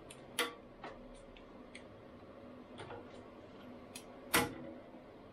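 Scattered light metallic clicks and taps as a hand tool and a metal workpiece are handled and fastened on a CNC router's metal table, with two louder knocks, one near the start and one about four seconds in.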